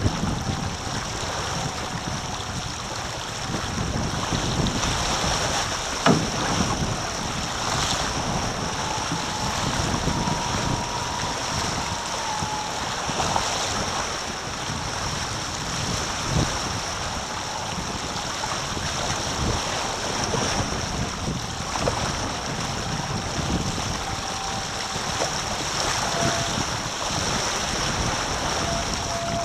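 Water rushing along the hulls of a Taipan catamaran sailing at speed, mixed with wind buffeting the microphone. A sharp knock comes about six seconds in, and a faint whistle sounds now and then.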